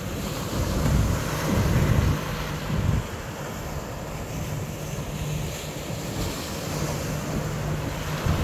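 Wind buffeting the microphone over choppy water, with heavy gusts in the first three seconds. After that comes a steadier rush of wind and water, with a faint low hum underneath.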